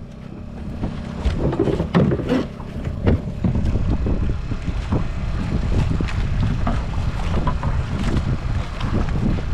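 Steady low rumble of a boat at sea with wind buffeting the microphone, broken by scattered short knocks, most of them in the first few seconds.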